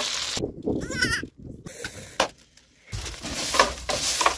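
A goat bleats once, a wavering cry about a second in. The rest is short spells of rustling and crackling noise that start and stop abruptly.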